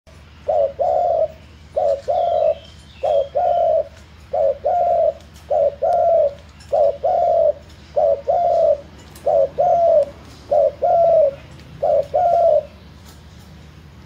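Spotted dove cooing: ten phrases, each a short note followed by a longer one, about one phrase every second and a quarter, stopping near the end.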